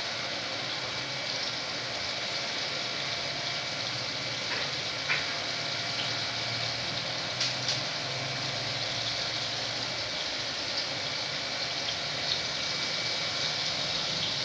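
Breaded chicken nuggets deep-frying in hot oil, a steady sizzle with a few sharp clicks.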